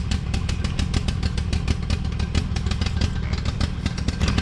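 Cub Cadet riding mower engine running steadily with a rapid, even pulsing beat. The owner says it has water in the gas.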